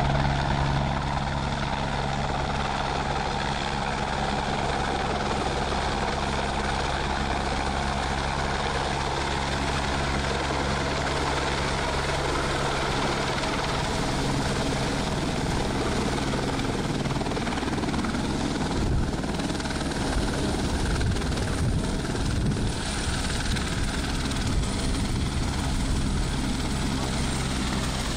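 Single-engine light helicopter approaching to land, a steady rotor and turbine drone. The rhythmic chop of the blades comes through more strongly in the second half.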